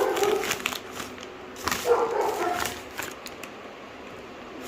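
A dog vocalizing in two bouts, one at the start and another about two seconds in.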